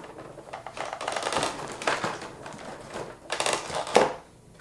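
Plastic toy packaging being handled as the straps holding a Transformers figure in its tray are undone: irregular clicks and rustles, with a sharp click about four seconds in.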